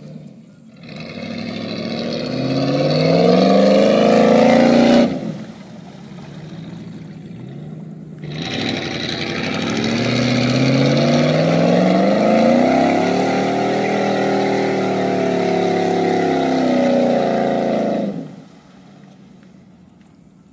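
Ford F-150 pickup's engine revving hard in two long pulls as it pushes through deep mud. The first climbs in pitch and cuts off sharply about five seconds in. The second rises, holds for about ten seconds, then falls away near the end.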